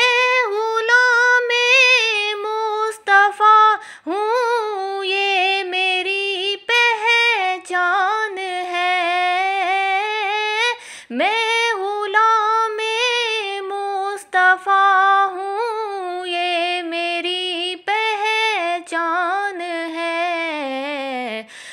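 A solo female voice singing a naat unaccompanied, in long held notes that waver and bend in pitch, with a falling glide near the end.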